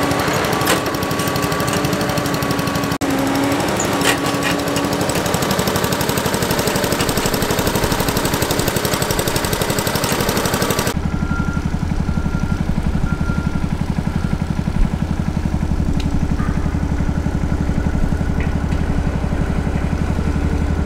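A motor engine running steadily with a pulsing rumble. About halfway through, the sound changes abruptly: the hiss drops away and a lower, steady engine drone is left.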